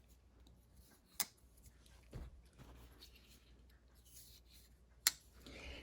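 Pocket knives being handled: faint rubbing, with two sharp clicks, one about a second in and one near the end, and a soft knock in between.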